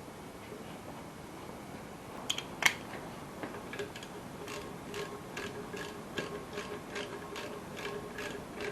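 Socket ratchet clicking as alternator mounting bolts are tightened on a Holden 173 engine: a couple of sharp clicks, then a steady run of ticks about two or three a second.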